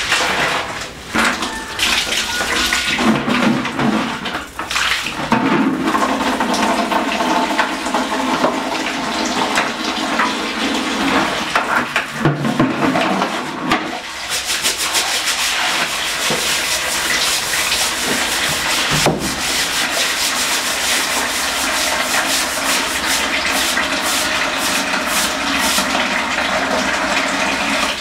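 Water sloshing and splashing in a plastic bucket and on a tiled floor as a bathroom is washed by hand. From about halfway through, a brush scrubs the floor tiles in quick strokes.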